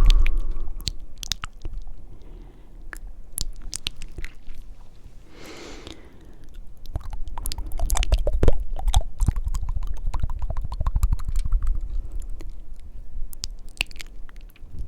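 Close-miked wet mouth sounds: rapid tongue clicks and flutters, with a breathy puff about five and a half seconds in and a dense run of fast clicking through the middle of the second half.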